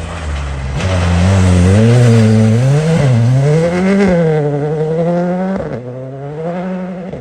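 Rally car engine revving hard, its pitch climbing and falling several times with throttle and gear changes. It drops suddenly to a quieter, steady note about six seconds in.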